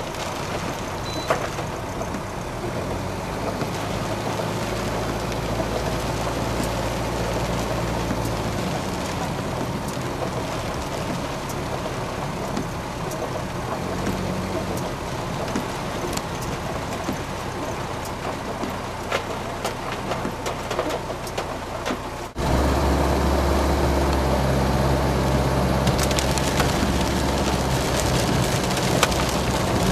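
Cabin sound of a Peugeot 504 driving on a rain-soaked road: a steady engine drone whose pitch shifts as the car speeds up and slows, over a hiss of tyres and rain. About three-quarters of the way through it cuts abruptly to a louder, deeper engine drone.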